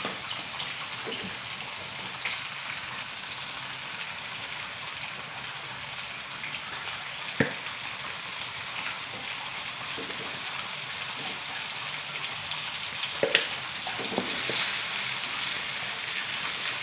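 Chicken pieces frying in a wok with freshly fried spice paste: a steady sizzle, with a sharp click near the middle and another one later on.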